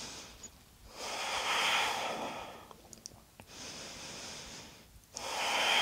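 A woman breathing audibly into a close microphone, in slow rounds of breath: a louder one about a second in, a softer one midway, and another starting near the end.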